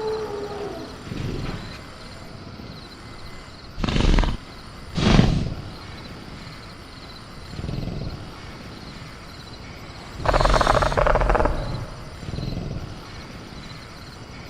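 Sound-effect ambience of a caged velociraptor: a short pitched call at the start, then two short loud growling bursts about a second apart, and a longer, louder one near the middle. Underneath runs a faint steady background of crickets.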